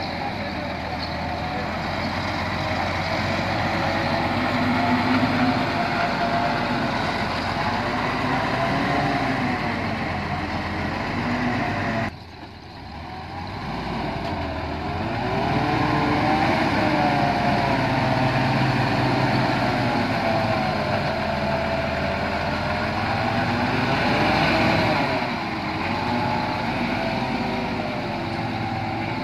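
Nissan Diesel V8 dump truck engine working as the truck drives through soft dirt, its pitch rising and falling with the throttle. The sound drops off suddenly about twelve seconds in, then builds again to a steady run.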